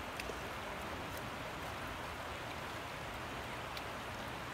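Steady hiss of water washing along the shoreline, with a few faint clicks.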